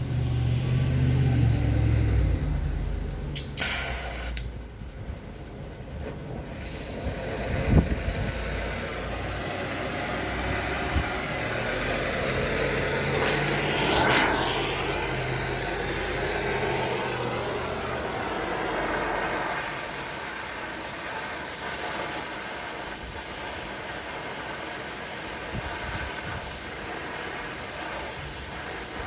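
Gas torch flame burning with a steady hiss, heating the steel of a vise so it can be bent. There is a single sharp knock about eight seconds in.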